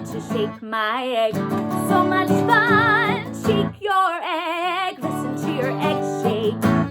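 A woman singing a children's song with vibrato, accompanied by a strummed guitar.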